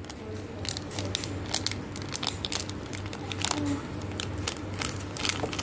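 Plastic sachet crinkling with many small irregular crackles as it is squeezed and shaken to empty powder into a glass.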